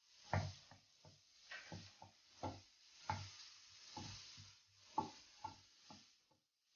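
A spoon or spatula stirring mushrooms and spinach in a pan, with short knocks and scrapes against the pan about twice a second over a faint sizzle of the ghee.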